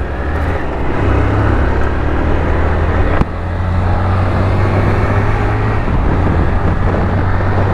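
Honda motorcycle engine running steadily with a low hum, with a single sharp click about three seconds in.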